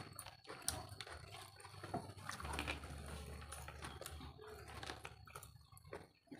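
Close-up eating sounds: chewing and slurping of fried instant noodles, with irregular small clicks of forks against the food and banana leaf.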